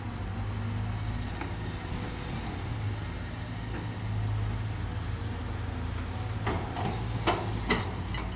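Caterpillar hydraulic excavator's diesel engine running with a steady low hum as the machine digs and swings its boom. A quick series of sharp knocks follows near the end.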